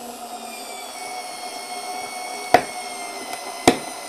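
Parkside PAS D5 4 V cordless screwdriver, fitted with its torque-adjustment attachment, running steadily as it drives a screw, its whine sagging slightly in pitch under load. Two sharp clicks come about two and a half and three and a half seconds in.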